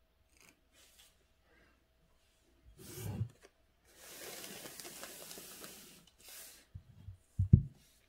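Faint scratches of a calligraphy brush stroking across paper, then a rubbing hiss lasting about two seconds, like paper sliding over the desk. Two dull thumps come near the end and are the loudest sound.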